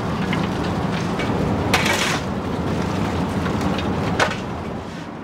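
Steam locomotive footplate at work: a steady rumble from the running engine, with a fireman's shovel scraping into coal about two seconds in and a sharp knock about four seconds in.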